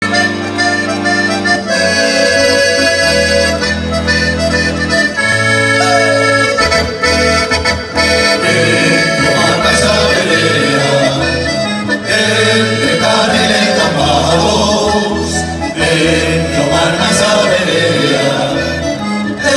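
Accordion playing a traditional Galician folk tune live through a PA. It holds sustained chords over a steady bass at first, and the playing turns busier from about eight seconds in.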